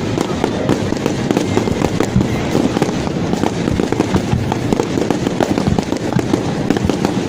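Fireworks going off in a dense, continuous barrage: many rapid, overlapping bangs and crackles with no pause between them.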